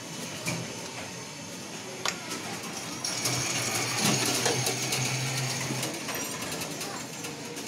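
A few sharp metal clinks, like a spoon against a steel bowl. Then, about three seconds in, a small machine starts up nearby: a steady whirring hum with a rattle, running for about three seconds before it stops.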